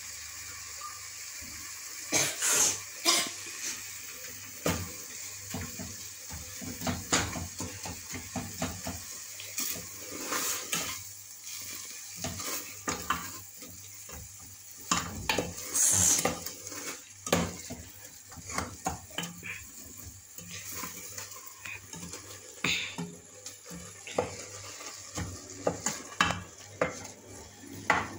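Wooden spoon stirring greens in an aluminium stockpot: irregular knocks and scrapes against the pot's metal sides and bottom, over a steady high hiss.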